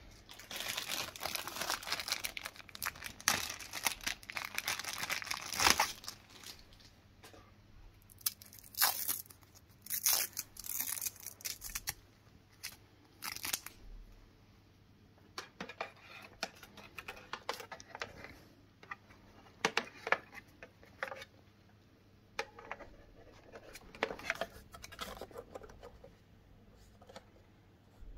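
Packaging being torn and crinkled during unboxing, a dense stretch in the first few seconds, then scattered short rustles and clicks as pieces are handled.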